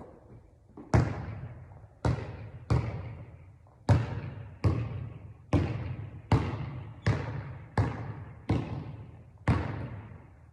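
A basketball being dribbled steadily on a hard court: about eleven bounces, roughly one a second, each echoing briefly.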